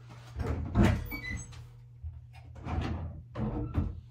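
Wooden wardrobe doors being pulled open and things moved around inside: a series of separate knocks, thumps and clatters, with a brief high squeak about a second in.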